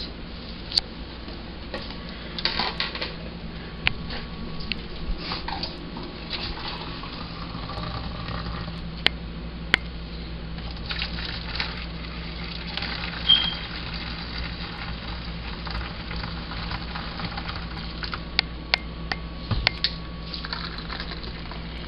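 A pot and dishes clinking and knocking, with short stretches of pouring liquid between the knocks, as hot gelatin is poured into molds. A steady low hum runs underneath.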